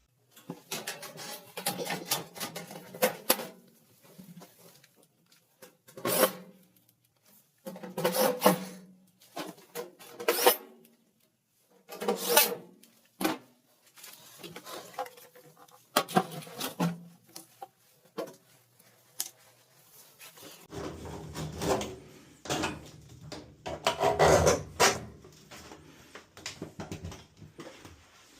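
Irregular bursts of scraping, rubbing and knocking from hands working on the washer's panels and parts. A low steady hum joins about two-thirds of the way through.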